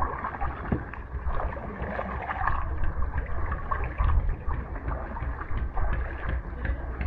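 Small boat being paddled on the water: water sloshing and lapping, with wind rumbling on the microphone.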